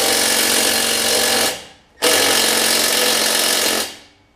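Cordless impact tool hammering as it runs out the 3/8-inch bolts holding a push mower's recoil starter. Two bursts of about two seconds each, with a short gap between; each winds down at the end.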